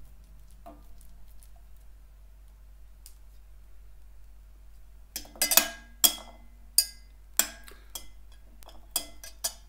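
Small stainless steel bowls clinking and tapping against a stand mixer's stainless steel bowl as dry flour mix is tipped in. It starts quiet, then from about five seconds in comes a string of sharp, ringing metal clinks.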